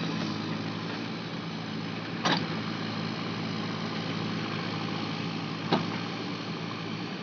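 Backhoe loader's diesel engine running steadily, with two short sharp knocks, one about two seconds in and one near the end.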